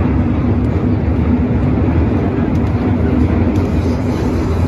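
MTR M-train electric metro train running through a tunnel, a steady loud rumble of wheels on rail and running gear as heard inside the car, with a faint steady hum.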